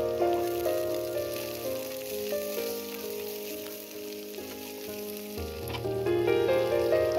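Onions, curry leaves and green chillies sizzling as they fry in oil in a kadai, a steady hiss, under instrumental background music whose bass drops out for a few seconds in the middle.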